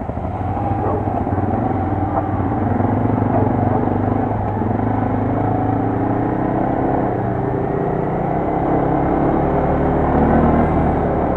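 Quad bike (ATV) engine running under way, its pitch rising and falling as the rider works the throttle.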